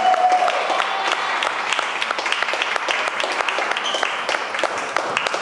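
A small group clapping: many quick, uneven hand claps overlapping.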